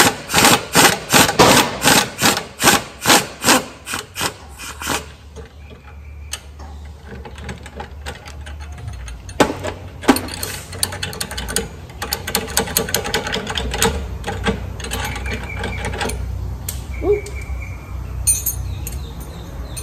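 Wrench working the nut on a car's front sway bar link: a run of even, rasping ratchet strokes, about three a second, for the first five seconds. After a lull, more irregular ratcheting and metal clicks follow from about ten seconds in.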